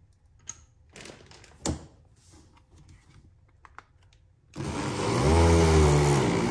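A few light clicks and knocks, then about four and a half seconds in a 1200-watt Braun MultiQuick 9 hand blender's motor starts running, its pitch rising and then falling as the blade grinds a dense mix of berries and partly crushed almonds that is short of liquid.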